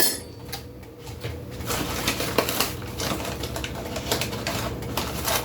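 Light clattering of kitchen utensils, a spoon and containers being handled, as rapid irregular clicks and knocks after a knock at the start.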